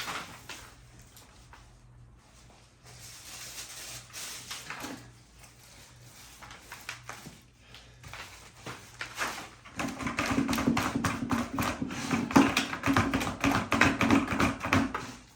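Thick high-build peel bond primer being spread onto an old plaster wall. Faint wet strokes give way, about ten seconds in, to a loud run of rapid sticky clicking and crackling over a steady low hum as the coat is worked on heavily.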